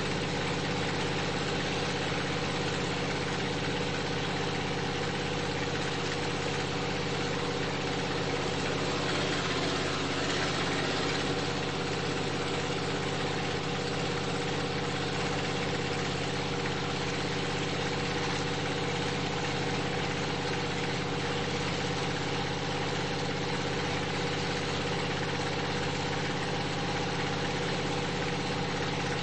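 A street-legal monster truck's engine running at a steady speed, heard from inside the cab while cruising down the road, with a brief swell of higher-pitched noise about ten seconds in.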